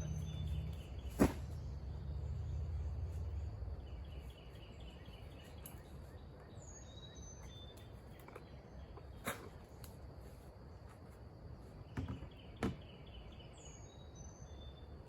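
Outdoor ambience of a steady insect drone, with a bird repeating a short falling whistle and a quick trill about every seven seconds. Four sharp clicks stand out, about a second in and near the end, and a low hum dies away about three seconds in.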